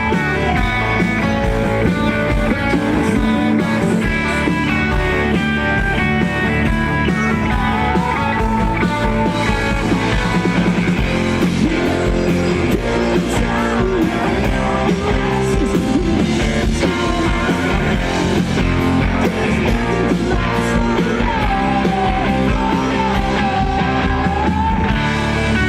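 A rock band plays live, with guitar out in front and a wavering melody line over it.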